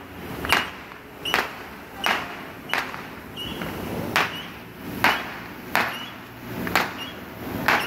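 Street fireworks going off: about nine sharp bangs in quick, uneven succession, roughly one a second.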